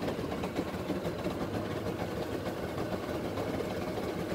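Small boat's engine running steadily at low speed, with a constant low hum and some wind and water noise.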